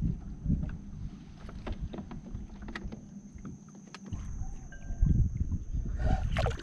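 Wind buffeting the microphone and small waves lapping against the skiff's hull, with a few sharp clicks; the low rumble swells about five seconds in.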